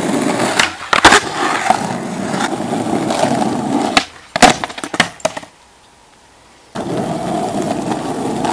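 Skateboard wheels rolling over asphalt, broken by sharp clacks of the board being popped and landing, once about a second in and again in a quick cluster around four to five seconds in. After a sudden second-long gap of near silence, the rolling starts again.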